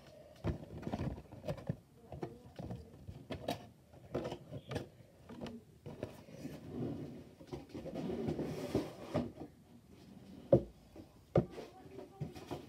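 Things being handled and moved about: rustling with scattered light clicks and knocks, and two sharper knocks near the end.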